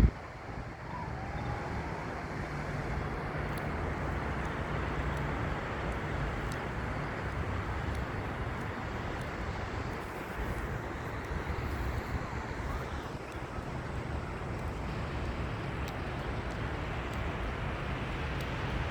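Steady outdoor background noise: an even rushing sound with a low rumble underneath.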